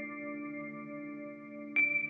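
Background music: bell-like notes ringing out over a held chord, with a new note struck near the end.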